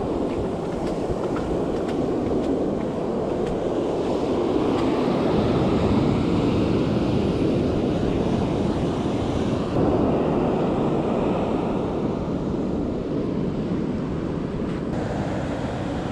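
Ocean surf breaking and washing up a sandy beach, a steady rushing wash that swells in the middle, with wind buffeting the microphone.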